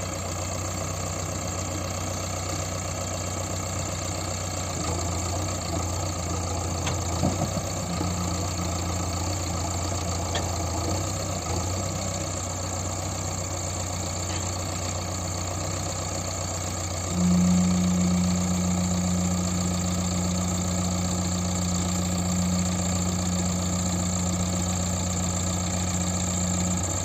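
JCB 3DX backhoe loader's diesel engine running steadily. About two-thirds of the way in it steps up to a louder, higher note and holds there.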